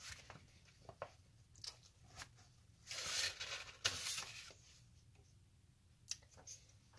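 Hands handling things on a desk: scattered light clicks and knocks, with a crinkly rustle lasting about a second and a half, about three seconds in.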